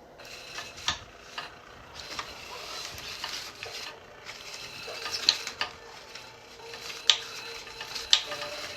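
Battery-powered automatic cat toy running: a small motor with scraping and rubbing as its moving part turns, broken by several sharp knocks and clacks.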